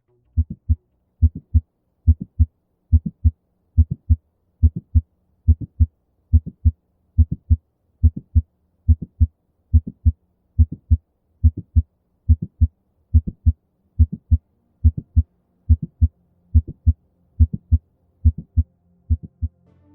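Recorded heart sounds of mitral stenosis, the 'quail rhythm': a loud first heart sound, an accentuated second sound and the short click of the mitral valve opening snap. The beats are low and thudding, each a quick cluster of strokes, and they repeat evenly at a little over one a second.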